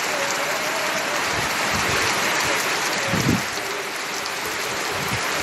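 Heavy rain pouring down on flooded ground and roofs, a steady dense hiss of drops. A brief low thump about three seconds in.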